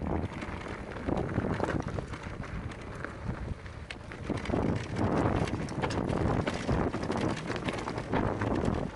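Electric mountain bike riding fast over a rocky dirt trail: tyres crunching over gravel and stones, the bike rattling and knocking over the bumps, with wind buffeting the microphone.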